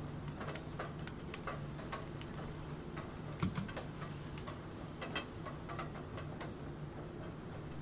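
Computer keyboard keystrokes, sparse and irregular, over steady rain, with a soft low thump about three and a half seconds in.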